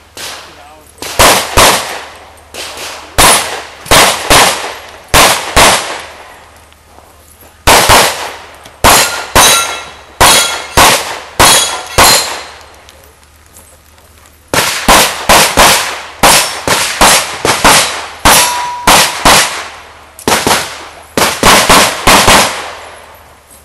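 Pistol shots fired in rapid pairs, two to a target, in a long string of fire. There are two short pauses of about two seconds, about a quarter of the way in and again near halfway.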